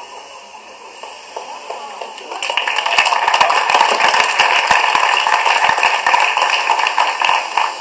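Audience applause played through a TV's speakers and picked up again by a microphone, starting about two and a half seconds in as a dense patter of clapping and fading just before the end.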